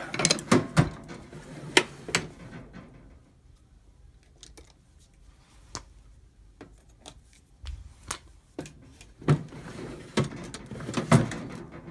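Sharp clicks and knocks of a tool prying at a 2001 Chevy Silverado's plastic door trim panel while it is being worked off. They come in quick bursts near the start and again about nine to eleven seconds in, with scattered single clicks between.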